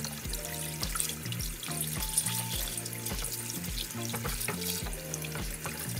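Background music, over tap water running and splashing into a stainless steel colander as a piece of blanched pork tenderloin is rubbed and rinsed by hand.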